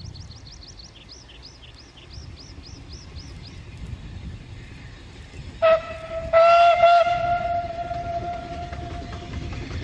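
Narrow-gauge steam locomotive whistle: a short blast, then a long one held for about three seconds, over a low rumble. A small bird chirps repeatedly in the first few seconds.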